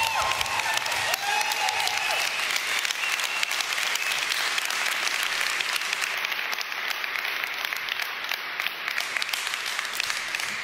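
A large audience applauding, with a few cheers in the first two seconds; the clapping eases off slowly.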